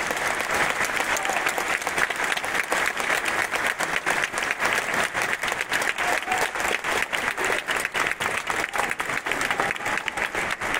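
Spectators applauding: many hands clapping at once in a steady, dense patter.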